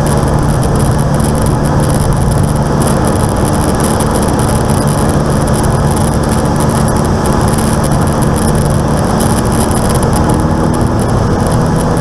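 A single piston aircraft engine running steadily, heard loud inside the cockpit: the engine noise noticed after its fuel-injection spider was replaced. Its tones shift near the end as the power changes.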